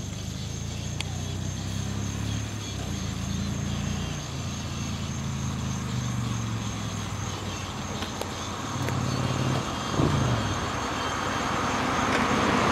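The V-twin engine of a 1999 Honda Shadow Aero 1100 running through its modified stock exhaust pipe, baffles removed and hole-saw modded, as the bike approaches from a distance. A low, steady engine note rises briefly in pitch about ten seconds in and grows louder near the end.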